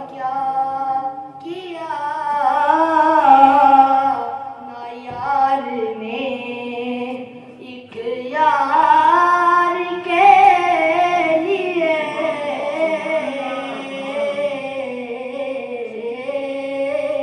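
A boy's solo voice singing an Urdu naat unaccompanied, in long, ornamented held phrases with short breaks for breath between them.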